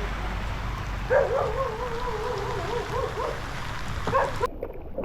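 Steady hiss of heavy rain falling on water and the kayak, stopping abruptly near the end. Partway through, a wavering pitched call rises and falls for about two seconds over the rain.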